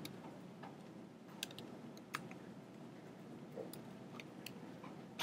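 Faint, scattered clicks of a computer keyboard and mouse: about ten light keystrokes and clicks at irregular intervals.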